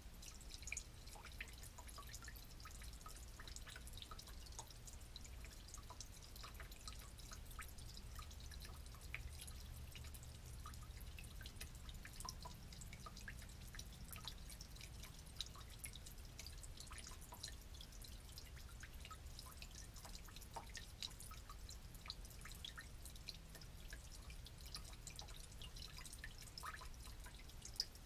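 Old gasoline dripping from a broken valve on an old portable generator into a plastic drain pan of collected fuel: a faint, steady, irregular run of small drips.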